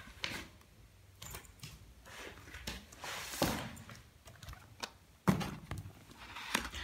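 Paper pages and a plastic-covered ring binder being handled: intermittent rustling and light taps, with a sharper knock about five seconds in.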